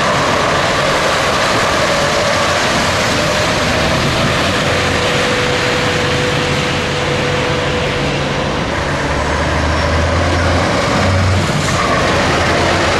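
Scania V8 diesel truck engine running on the road under steady road and wind noise. A thin steady whine holds for a few seconds in the middle, and the low engine note grows stronger near the end.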